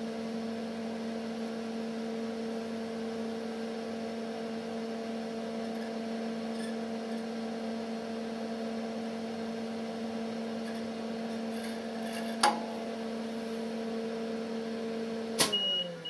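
Steady electrical hum from a variac feeding a dimmer switch and two 100 W bulbs, run at about 280 volts. A click comes about twelve seconds in; a sharper click near the end cuts the power, and the hum dies away with a falling pitch.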